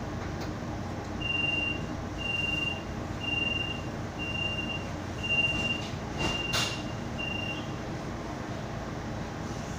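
A streetcar's door warning beeper sounding at a stop: seven short high beeps about a second apart over the steady hum of the standing car, with a sharp knock about six and a half seconds in.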